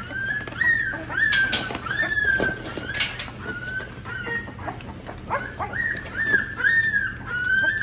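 American Bully puppies whining and crying in a quick string of short, high, arching cries, about two a second, as they are being weaned onto mush. A few sharp clicks come in between the cries.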